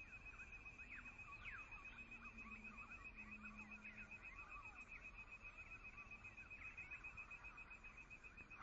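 Faint birdsong from several birds, many short chirps and whistles, over a steady, rapid pulsing trill.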